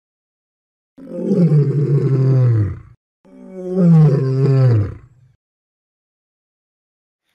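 A big cat roaring twice: two long calls, each about two seconds, falling in pitch. The first starts about a second in, and the second follows right after it.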